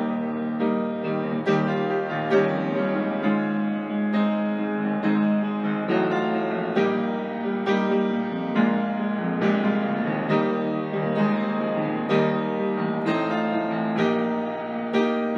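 Solo piano playing a slow, gentle piece, a new note or chord struck about once a second.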